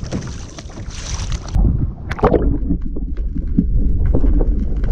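Wind and water on the open sea around a kayak. About one and a half seconds in, the sound abruptly turns muffled, with a heavy low rumble and bubbly crackles, as heard by a GoPro below the surface.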